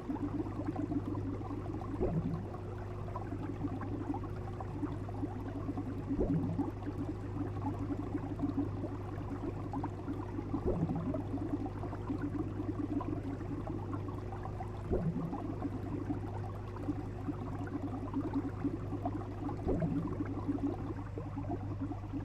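Water bubbling and gurgling over a steady low hum, as from a fish tank. A short low knock recurs about every four to five seconds.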